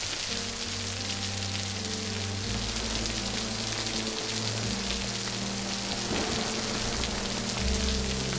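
Heavy rain falling steadily, a dense even hiss with fine pattering, over low held notes of a film score.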